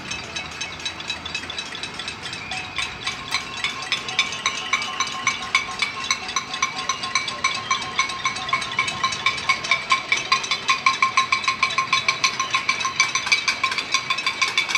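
Many pots, pans and metal basins struck with spoons from apartment windows across a neighbourhood, a dense metallic clanging of several strikes a second that grows louder; a pot-banging noise protest.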